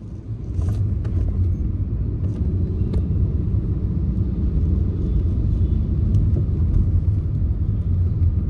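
Car driving, heard from inside the cabin: a steady low rumble of engine and road noise, with a few faint clicks in the first few seconds.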